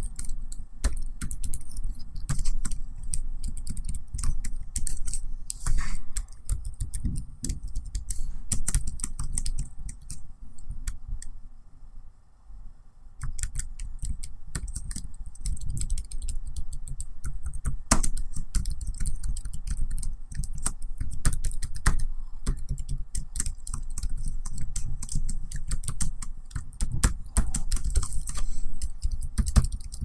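Typing on a laptop keyboard: rapid, irregular key clicks, with a short lull about halfway through.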